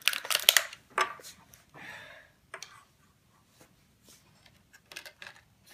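A clear plastic bag crinkling and small plastic doll accessories clicking as they are handled, with a dense burst of sharp crackles at the start, a short rustle, then scattered light clicks.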